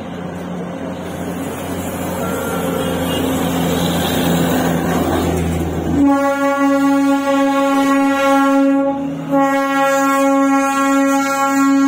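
Narrow-gauge diesel locomotive of the Darjeeling toy train approaching, its engine running with a low hum that grows louder. About halfway through its horn starts suddenly and gives two long blasts with a short break between them.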